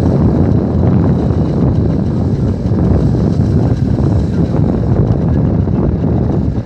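Wind buffeting the microphone as a loud, fluctuating rumble, with the engine noise of a distant vehicle under it.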